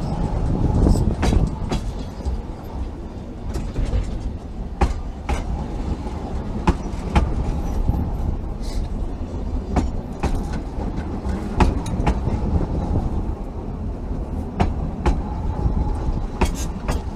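Ffestiniog Railway narrow-gauge passenger coaches rolling slowly past: a steady low rumble from the wheels on the track, with sharp clicks at irregular intervals.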